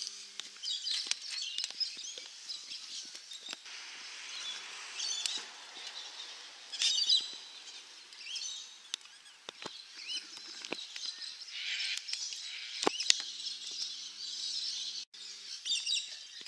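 Birds chirping and singing in short repeated calls and trills, with a few sharp clicks and knocks.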